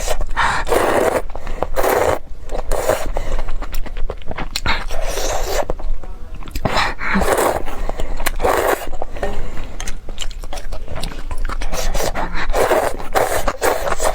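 Close-miked eating: a person biting and chewing food, a wet, noisy burst about every second with scattered sharp clicks and scraping.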